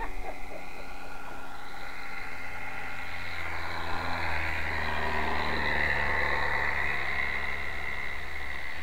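Radio-controlled model airplane's engine running, its pitch dipping and then rising again about three to four seconds in.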